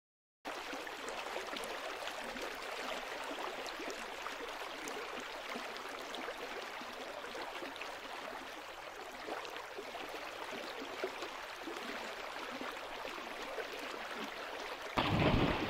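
Steady, even rushing noise of river water and outdoor air on the wildlife recording. Near the end a louder, deeper rush comes in.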